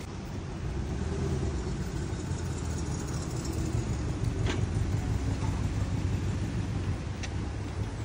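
Low, steady outdoor rumble with two faint clicks, one about halfway through and one near the end.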